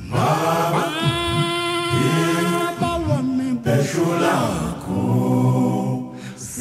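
A cappella choral singing: several voices holding long, chant-like notes in harmony, with short breaths between phrases.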